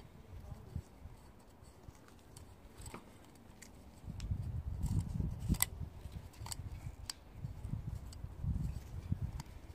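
Plastic oil filter housing cap handled in gloved hands: scattered sharp clicks and taps, most of them from about halfway through, over a low rumble that swells from about 4 seconds in.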